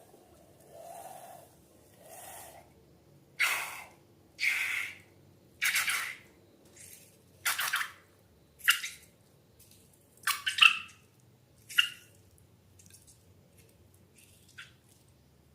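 Slime being squeezed and worked by hand: about a dozen irregular wet squelches, a few with a short high squeak from trapped air, the loudest ones in the later half.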